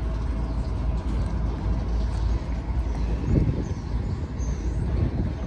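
Freight train rolling past, a steady low rumble of wheels on rail with a couple of louder thumps a little past halfway.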